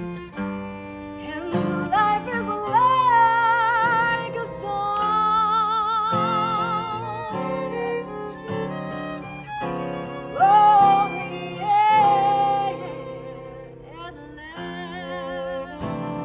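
Live music: an operatic soprano-style melody with wide vibrato, climbing to sustained high notes, over orchestral strings and low sustained chords.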